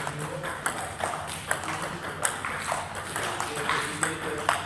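Table tennis balls clicking on bats and table, sharp irregular ticks about two a second, from more than one table in play.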